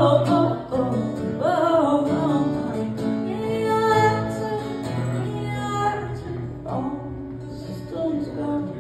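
A woman singing live while strumming an acoustic guitar, her voice carried through a small PA.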